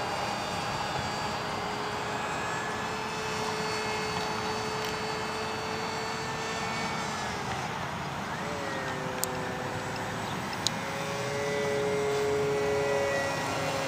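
Radio-controlled blended-wing lifting-body model airplane flying overhead: a steady motor-and-propeller whine whose pitch shifts and splits into two tones about two-thirds of the way through, growing slightly louder near the end.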